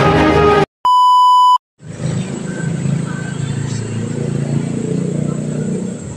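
A single steady electronic beep lasting under a second, coming just after a music intro cuts off. Then a steady low rumble of street and vehicle noise.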